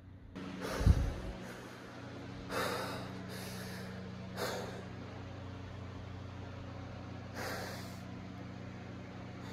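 A person breathing heavily: several loud, noisy breaths at uneven intervals, over a steady low hum. A sharp low thump comes about a second in.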